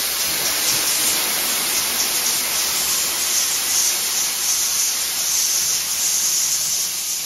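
Fire sprinkler heads spraying water, a steady hiss.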